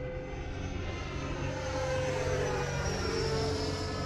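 Electric ducted-fan whine of an E-flite Viper 90mm EDF jet flying past. It swells in the middle and drops slightly in pitch as it passes.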